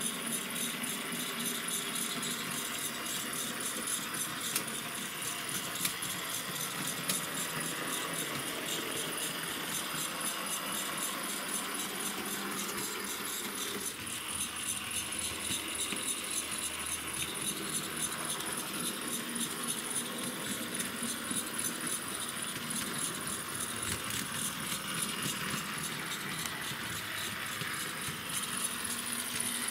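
H0-scale model trams running on layout track: a steady, continuous rattling clatter of small wheels on the rails and the models' little motors.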